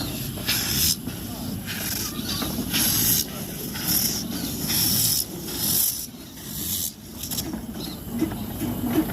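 Steam locomotive "Russell" hissing steam in short, repeated bursts about once a second, over a steady low rumble.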